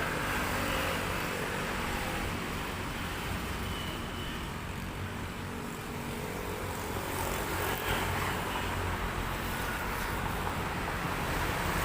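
Steady low rumble of road traffic, with no distinct passes or horns.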